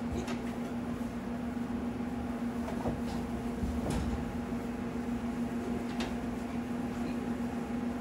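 Steady mechanical hum, like a ventilation fan or electric motor, with a few faint clicks or taps about three, four and six seconds in.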